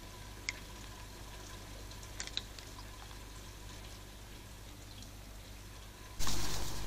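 Steady electrical hum and hiss of a trail camera's microphone with a faint steady whine, broken by a few faint clicks, then a sudden loud rush of noise near the end that fades away.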